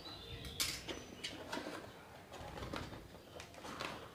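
Cardboard gift box and its paperboard insert being handled and folded: scattered rustles, scrapes and light taps, the sharpest about half a second in.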